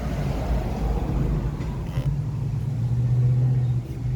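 Steady low mechanical rumble with a humming tone, like a motor vehicle's engine running nearby.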